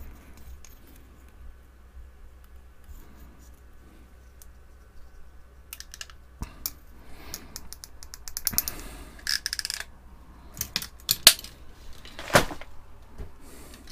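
Hand ratchet crimping tool being squeezed onto a wire connector: scattered clicks, a quick run of ratchet clicks about eight and a half seconds in, then two sharp, louder snaps near the end.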